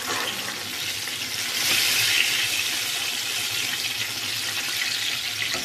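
Cubed eggplant deep-frying in hot oil in a pan: a steady sizzling hiss that grows louder about one and a half seconds in, as a wire mesh skimmer works through the pieces.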